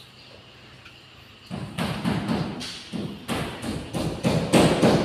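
A quick, uneven run of dull thumps and knocks, about three a second, starting about one and a half seconds in and growing louder.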